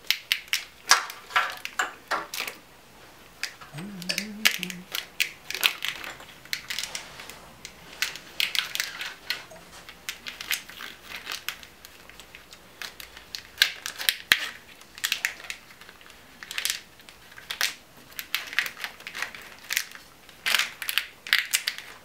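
Corrugated plastic wire-loom tubing crackling and rustling in irregular bursts as a wiring harness is handled and pressed into place.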